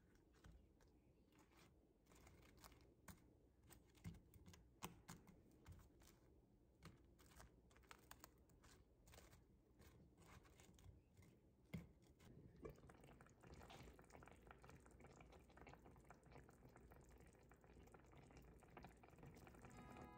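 Very faint light taps and clicks of bread wedges being set down and turned in a dry nonstick frying pan. About two-thirds of the way in, the clicks thin out and a faint steady hiss takes over.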